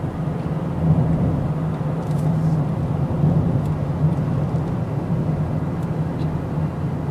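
Steady low drone of a car at highway speed, heard from inside the cabin: engine, tyre and road noise.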